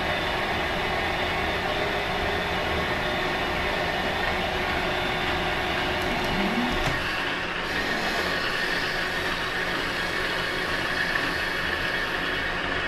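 Metal lathe running under power feed, the tool taking a light finishing cut along a hydraulic cylinder piston rod: a steady mechanical whir. A thin high tone comes in about two-thirds of the way through.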